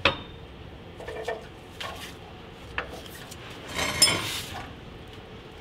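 Metal clinks and knocks as a Humvee drive shaft is worked loose and lowered by hand: a sharp click at the start, a few separate knocks, then a longer rattling clatter about four seconds in.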